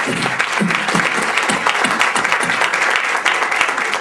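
Live audience applauding: a dense, steady mass of clapping.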